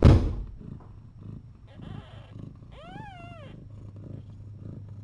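Mother cat purring steadily while her kittens nurse, with one short meow that rises and falls about three seconds in. A sharp, cough-like burst of noise comes right at the start and is the loudest sound.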